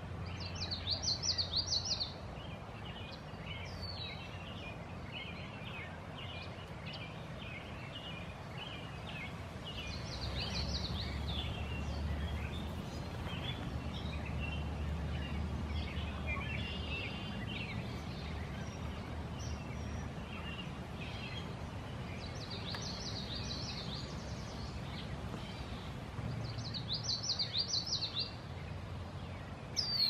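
Wild birds singing outdoors: many short high chirps, with a brief phrase of rapid high notes standing out about four times, over a low steady rumble.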